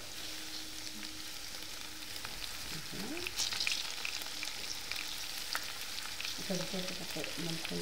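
Butter and onions sizzling in a non-stick frying pan over a gas flame: a steady frying hiss, with a brief louder crackle about three and a half seconds in.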